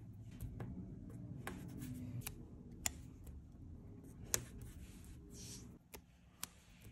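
Fingers rubbing and pressing stickers down onto a printed paper cutout on a tabletop, with small sharp clicks and taps; two louder clicks come about three and four seconds in. A brief rustling hiss just before the handling quiets down near the end.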